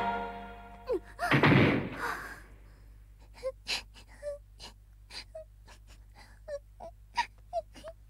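Cartoon soundtrack: music fades out, then about a second in comes a short falling tone and a loud rush of noise. From about three seconds in, a small child sobs quietly: soft catches of breath, each with a short high squeak, about two a second.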